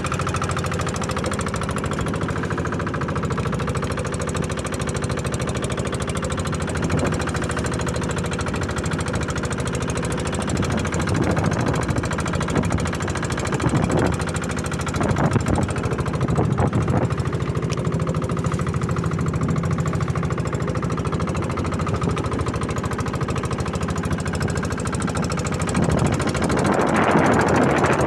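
Boat's engine running steadily with a rapid knocking chug. A louder rush of noise rises near the end.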